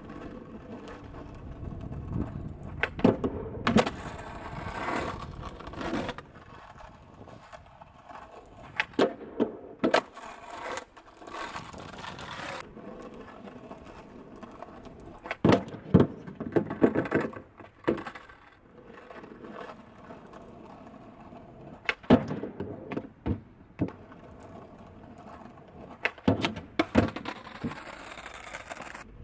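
Skateboard wheels rolling, broken by about five clusters of sharp clacks and thumps, one every five or six seconds, as the board is ollied up onto a home-made manual pad and comes down again.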